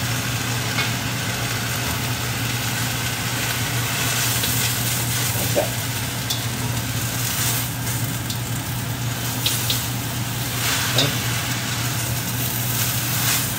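Water spinach sizzling in a hot, thin wok, turned with tongs that tick against the pan a few times, over a steady low hum.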